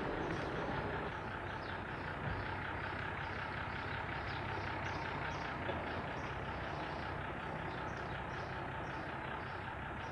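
Motor vehicle engine running steadily amid outdoor traffic noise, with a regular run of short high chirps about twice a second.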